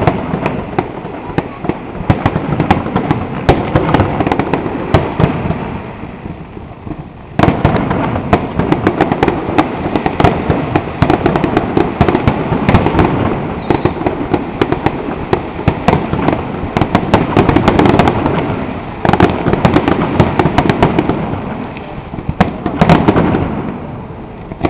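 Fireworks grand finale: a dense, continuous barrage of bangs and crackling shells going off in rapid succession. It thins out briefly about a quarter of the way through, then comes back suddenly at full strength.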